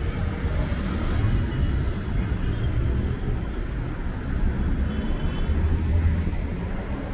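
City street traffic: a steady low rumble of passing cars, with faint voices in the background.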